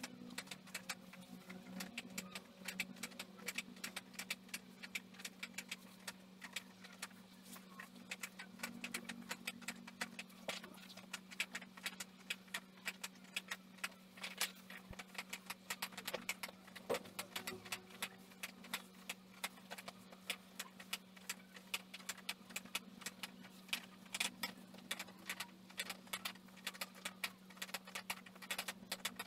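Foam roller rolling under a body on a tiled floor: a dense run of small irregular clicks and rattles, over a steady low hum.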